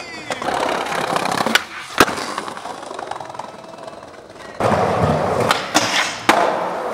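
Skateboard wheels rolling on pavement, broken by sharp clacks of the board and trucks striking, twice in the first half. About four and a half seconds in, louder rolling starts, with three more clacks close together.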